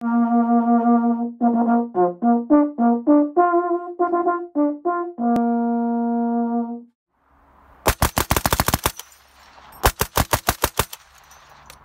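A bugle call of several notes, ending on a long held note, then two bursts of Vickers machine-gun fire, each about a second long at roughly ten shots a second.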